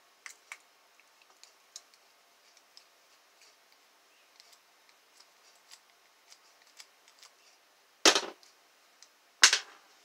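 Faint ticks and scrapes of a Phillips screwdriver working on a padlock's screws, then near the end two sharp clacks about a second and a half apart as metal parts are put down on the vinyl table.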